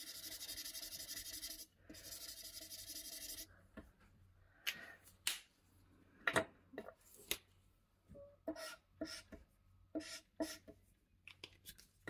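Fine marker tip drawn across layout paper in two long scratchy strokes, then a string of separate sharp clicks and taps.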